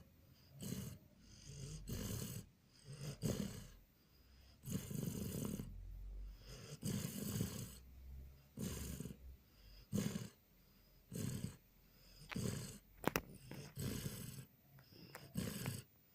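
Border collie snoring in its sleep: a steady run of short snores, about one breath a second, a few drawn out longer. A single sharp click about thirteen seconds in.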